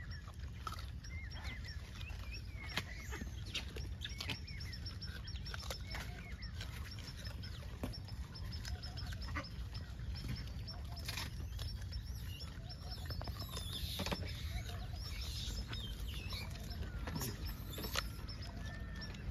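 Birds chirping here and there over a steady low rumble, with frequent small clicks and rustles.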